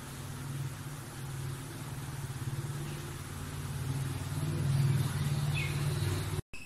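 Kitten purring steadily while its head is scratched, a low rapid rumble that swells louder a little after the middle and cuts off abruptly near the end.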